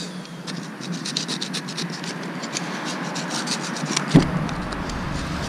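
Screwdriver scraping salt and scale deposits out of the thermostat housing on a Mercury four-stroke outboard, in quick, irregular strokes, with a knock about four seconds in.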